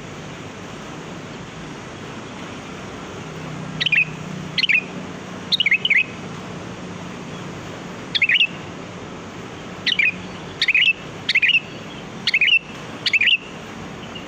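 Sooty-headed bulbul calling: short phrases of a few quick notes that fall in pitch. They start about four seconds in and repeat about once a second to the end.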